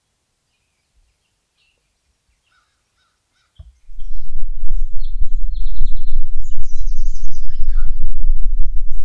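Near silence for about three and a half seconds. Then a loud, low, buffeting rumble of wind on the microphone sets in abruptly, with birds chirping and calling over it.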